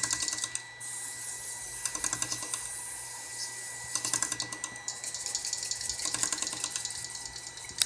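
Isopropyl alcohol applied to a still-hot phone mainboard to cool it after eMMC reflow, crackling and fizzing as it is dabbed on, with dense rapid fine clicks.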